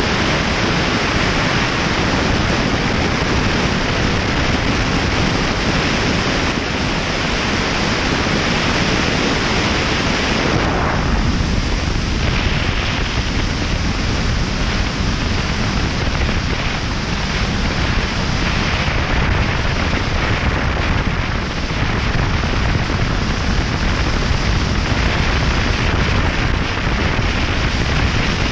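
Steady wind rushing over the microphone of a camera mounted on a moving motorcycle at road speed. Its hiss grows duller about ten seconds in.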